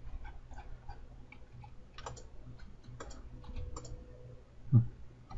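Scattered computer mouse clicks and keyboard key presses at a desk, spaced irregularly, over a steady low hum, with a brief low vocal sound near the end.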